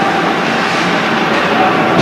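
Steady, loud ice-rink game noise: a continuous wash of play on the ice and spectators, with a faint held tone underneath and no single event standing out.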